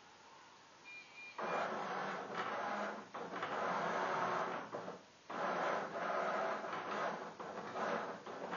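Milton Bradley chess robot's motor-driven carriage under the board running, drawing pieces across the board in two long runs with a short break between. Two short high beeps come about a second in, just before it starts.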